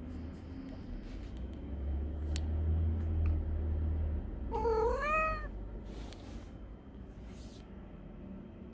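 A pet cat meowing once about halfway through, a single call rising in pitch, over a low steady hum and a few faint clicks.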